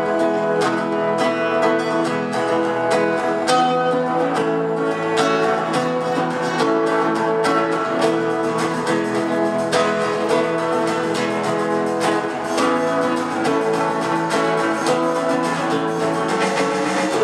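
Instrumental music led by strummed guitar, with steady regular strokes over held chords, before any singing comes in.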